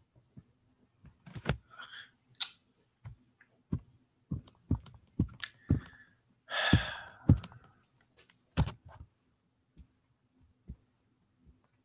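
Irregular soft taps and clicks of a stylus on a tablet or touchscreen while writing, with a faint low hum underneath.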